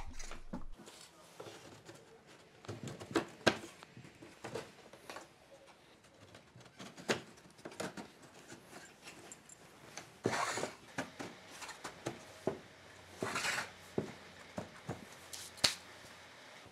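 Pine plywood partitions being pressed and seated by hand into a wooden frame: scattered light clicks and knocks of wood on wood, with a brief scraping rub about ten seconds in and another about thirteen seconds in.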